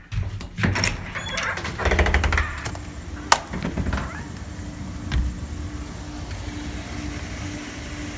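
A few knocks and scuffs, with a sharp click about three seconds in. Then, from about five seconds in, the steady hum of an Amana Cool Zone window air conditioner running with its Tecumseh compressor, a low tone that pulses faintly.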